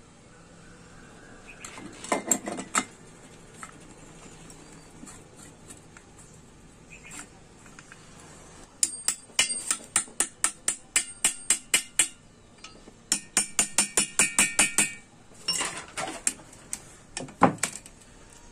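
Quick runs of light metallic taps, about six a second, as a tool works against the cylinder barrel and studs while the barrel is fitted over the piston of a TVS 50 moped engine. Some taps ring briefly, and a few single heavier knocks fall before and after the runs.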